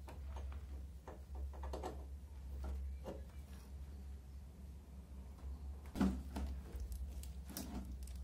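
A steady low hum with scattered faint knocks and clicks, and one louder knock about six seconds in.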